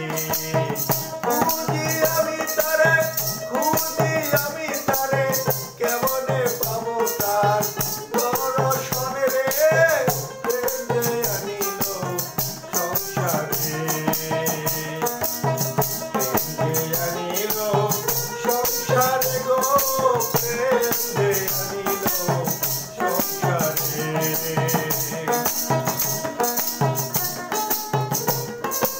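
Bengali folk song: a man singing with a small hand drum beaten in a quick rhythm, over a steady, even shaking of a rattle or jingles.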